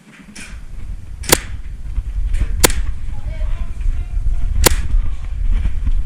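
Airsoft guns firing three sharp single shots, spaced unevenly about a second and two seconds apart. A loud low rumble sits under them.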